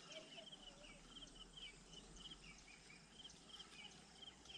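Near silence: faint outdoor ambience with a steady run of short, high-pitched animal chirps, two or three a second.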